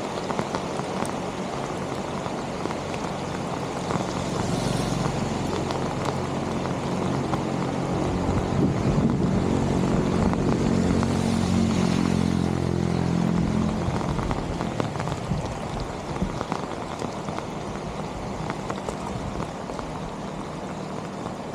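Steady rain and water noise, with a low engine-like hum that grows louder toward the middle and then fades away.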